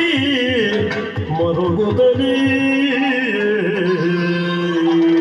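Yakshagana music: a male voice sings a bending melodic line that settles into a long held note near the end, over a steady drone and regular maddale drum strokes.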